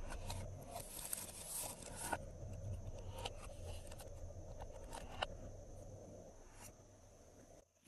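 Glossy slime being mixed and squished: dense sticky crackling for about the first two seconds, then sparser small clicks and pops that fade away, cutting off just before the end.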